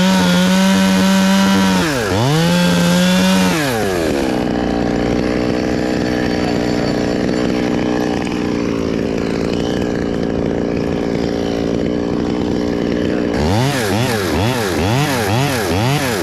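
Chainsaw held at full throttle, cutting the very hard Australian pine, easing off briefly about two seconds in and dropping to idle about four seconds in. Near the end the throttle is blipped in quick revs about twice a second.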